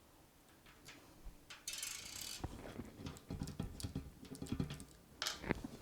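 Clicks, scrapes and light knocks of a PC case's thumb screws being turned and its frameless tempered-glass side panel being handled off the case. It starts with a short scrape about a second and a half in, then scattered small clicks and knocks follow.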